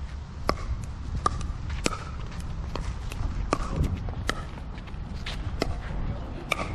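Pickleball play: sharp pocks of paddles striking the hard plastic ball and the ball bouncing on the court, irregular, about two a second, over a steady low rumble.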